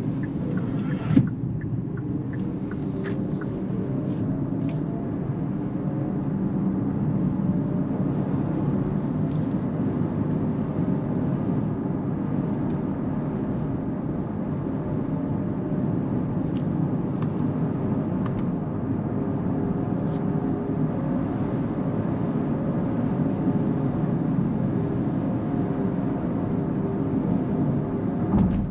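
Cabin noise inside a Kia EV6 electric car on the move: steady tyre and road rumble, with a single knock about a second in.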